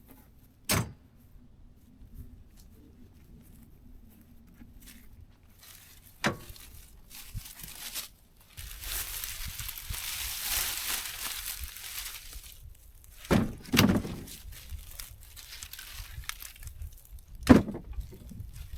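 Five sharp thunks and knocks, two of them close together, with about four seconds of rustling, crunching noise midway through.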